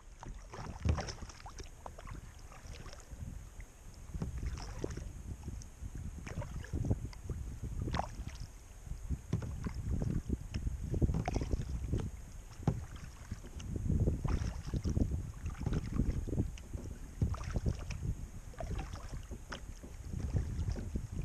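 Kayak being paddled on calm water: irregular paddle splashes and drips over a low, continuous rumble of wind on the deck-mounted camera's microphone.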